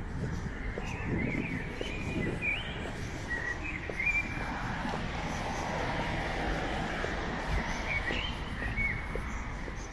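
Small songbirds chirping in the trees in short, high calls, a cluster in the first few seconds and another near the end, over a steady low background rumble.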